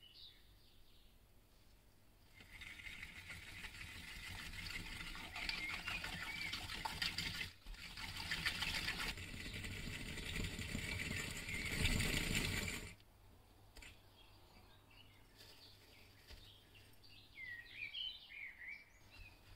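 Eggs and powdered sugar being beaten by hand in a glass bowl: fast, steady scraping and clinking of the utensil against the glass for about ten seconds, with a brief pause partway, stopping abruptly. Faint bird chirps near the end.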